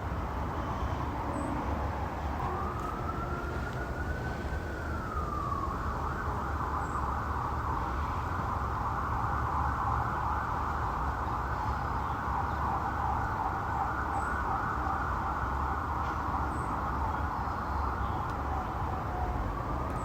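Police car siren: a slow wail dies away, rises and falls once more, then switches about six seconds in to a fast yelp that runs most of the time, before a slow wail starts rising again near the end. A steady low rumble lies underneath.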